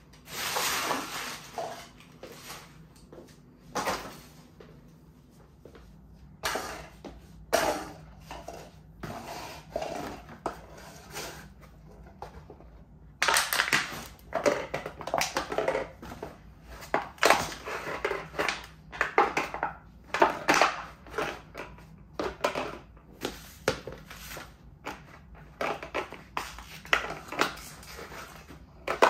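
Cardboard, paper and thin plastic packaging crushed underfoot: irregular crunching and crackling, scattered at first, then coming thick and fast from about halfway.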